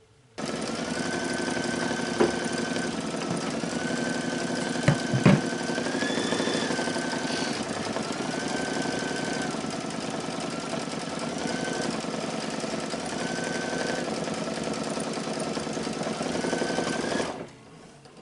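Brother Luminaire embroidery machine stitching an applique piece in its hoop: a fast, steady needle rhythm with a tone that steps up and down in pitch. It starts just after the beginning and stops about a second before the end, with a few sharp clicks about two and five seconds in.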